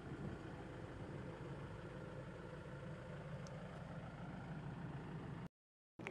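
Engine idling, a faint steady low hum. It cuts off suddenly near the end.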